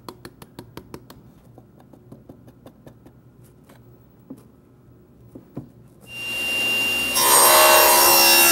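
A run of light clicks in the first second or so as the tablesaw's rip fence is brought up to the blade. About six seconds in the tablesaw is switched on: the motor and combination blade spin up over about a second and settle into a loud, steady run.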